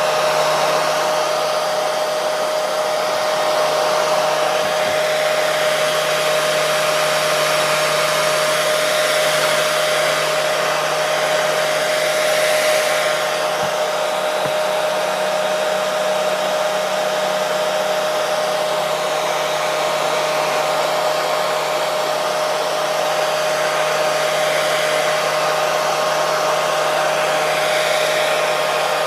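Hair dryer running continuously: an even rush of blown air with a steady motor whine underneath.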